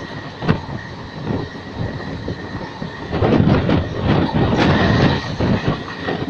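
Steel wheels of a moving Indian Railways passenger coach clattering along the track, heard from the coach's open doorway, with sharp clicks at the rail joints. About three seconds in, the clatter turns denser and louder for a couple of seconds as the coach runs over a road level crossing.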